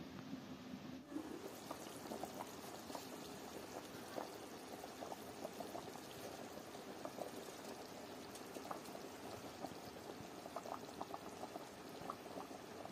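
Lamb broth bubbling at a hard boil in an aluminium pot: a steady wash of small irregular pops and gurgles.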